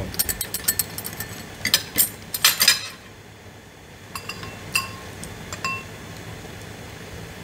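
Chopsticks and a spoon clinking and tapping against ceramic bowls and a clay hotpot. A quick run of clicks fills the first three seconds, followed by a few single ringing clinks.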